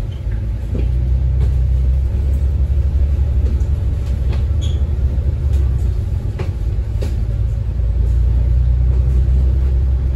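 Bus running: a loud, steady low engine and road rumble heard from inside, with scattered short rattles.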